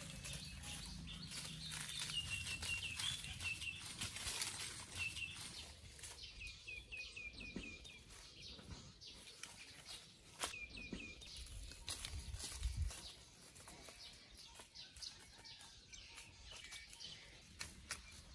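A bird calling in quick runs of short chirps, several runs in the first half, over barefoot footsteps rustling through dry leaf litter, with a couple of louder knocks in the second half.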